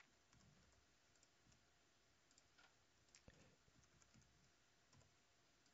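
Near silence: room tone with a few faint computer mouse clicks.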